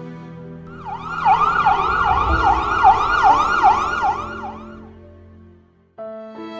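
Emergency-vehicle siren wailing in quick rising-and-falling sweeps, about two or three a second, over sustained sad background music. It fades out near the end, and violin music begins.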